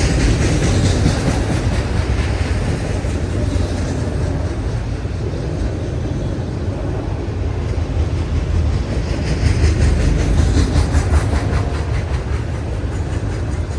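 Train passing close by: a steady loud rumble of rolling railcars, with runs of rhythmic clicking as wheels cross rail joints, most marked at the start and again about two-thirds of the way through.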